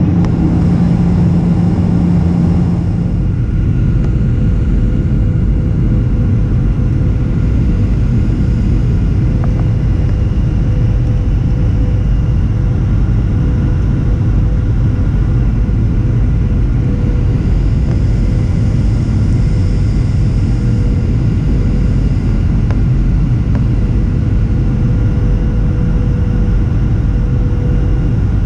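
Steady roar of a jet airliner's engines and rushing air inside the cabin during the descent to landing, with a steady whine running through it. A louder low hum drops away about three seconds in.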